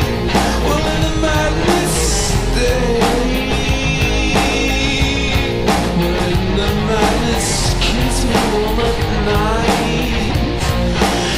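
Rock music from a full band, with a steady drum beat and a bending, pitched lead line over it.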